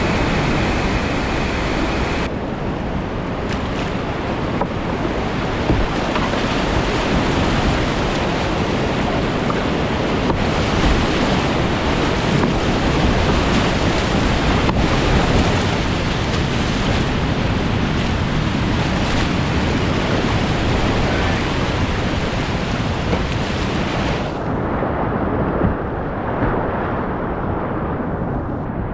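Loud, continuous rushing roar of whitewater rapids and falling water. Near the end the sound suddenly turns duller, its high end cut off.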